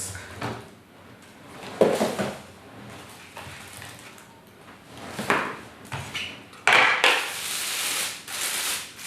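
Packaging being handled and unwrapped from a camera lens: scattered rustles and knocks, then a longer stretch of rustling near the end.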